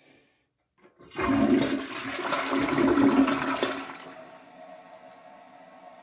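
Push-button toilet flushing: a short click, then a loud rush of water into the bowl for about three seconds, fading near the end to a quieter steady hiss.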